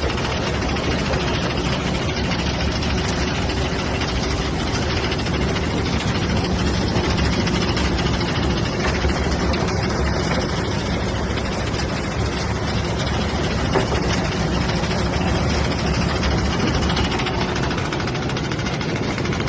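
An engine running steadily, with one brief click about two-thirds of the way through.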